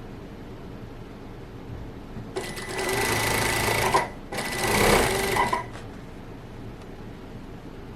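Sewing machine stitching in two short runs of about a second and a half each, with a brief pause between.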